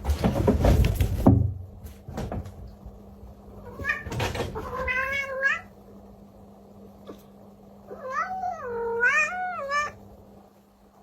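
Domestic cat meowing: two drawn-out, wavering meows, one about four seconds in and a longer up-and-down one about eight seconds in. A burst of loud knocking noise comes in the first second or so.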